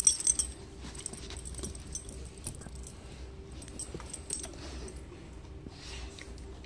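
Mastiff puppy moving and mouthing on a carpet. Its collar jingles loudly for a moment at the start, then there are quiet scattered clicks and rustles.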